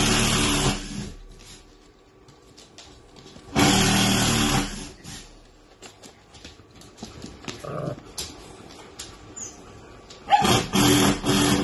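A dog growling low in three bouts: about a second at the start, a longer one about three and a half seconds in, and a string of short growls near the end.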